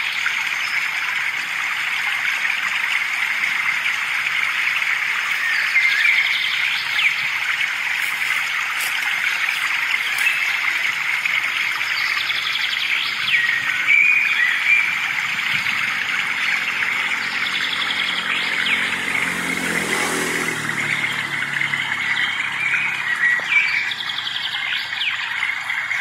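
Several birds chirping and calling over a steady high hiss. A motor vehicle passes by, loudest about twenty seconds in.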